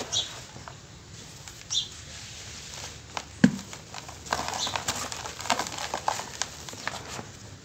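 Dry cement chunks crumbled by hand: crunching and cracking as the blocks break apart, with a sharp knock about three and a half seconds in, then a busy stretch of gritty crumbling and trickling powder.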